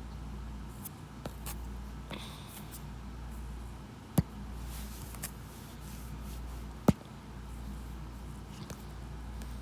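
Two sharp clicks, about four and seven seconds in, with a few fainter ticks between them, over a low steady hum and room tone.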